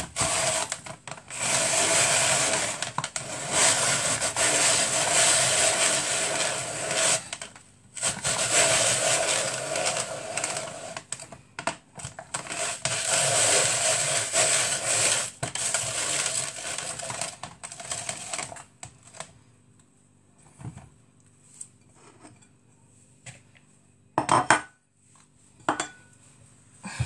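Electric kitchen machine's motor running hard in several long bursts with short pauses, processing potatoes for potato akara, then stopping about 18 seconds in. A few sharp clinks of dishes follow near the end.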